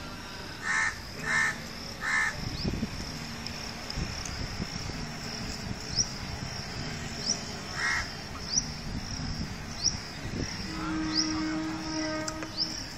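A bird cawing three times in quick succession, then once more later on. Near the end a steady horn-like tone sounds for about two seconds, and a faint high chirp repeats about every second and a bit.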